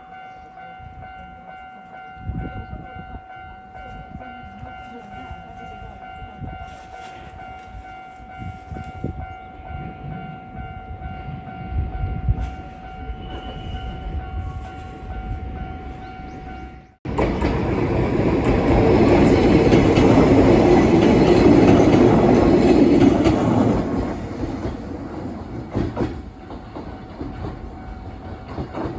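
Level-crossing warning bell ringing steadily while a low rumble slowly builds. After an abrupt cut about 17 seconds in, an electric train passes close by with wheels clattering on the rails, loudest for several seconds and then fading.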